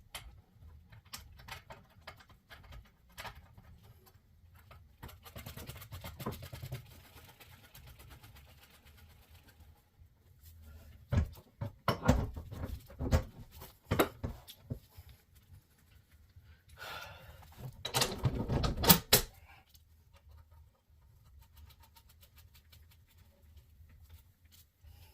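Hand tools and steel suspension parts being handled during a front hub install: scattered clicks, knocks and clanks, with two louder stretches of clattering, one just before the middle and one about three quarters of the way through.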